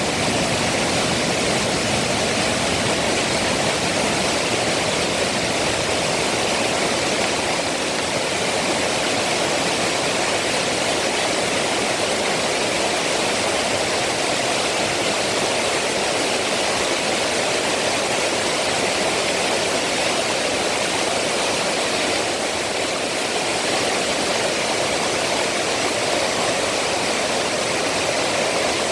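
Water rushing steadily over Heukseok Falls, a slide waterfall where the stream runs down sloping rock, running full after heavy summer rain.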